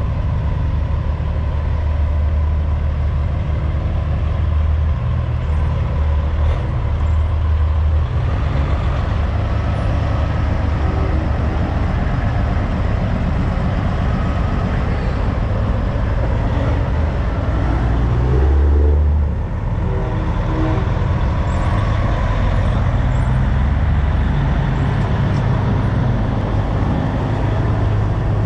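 Big rig diesel engines running as semi-trucks drive out. There is steady deep engine noise, a louder low surge a little past the middle, and a brief drop right after it.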